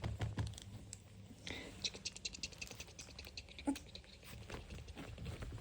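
Faint scratching and many light, quick clicks of puppies' claws and paws scrabbling over the floor and ramp, over a low hum.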